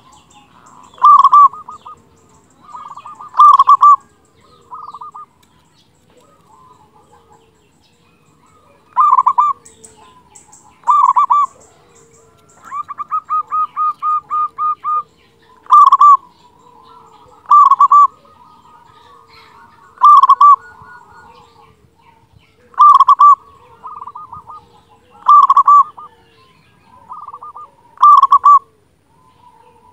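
Local zebra dove (perkutut) in full song, with a loud, big voice: repeated cooing calls about every two seconds. There is a pause of a few seconds about a fifth of the way in, and a rapid run of about ten short, even notes near the middle. Faint, higher chirps from other small birds sound in the background.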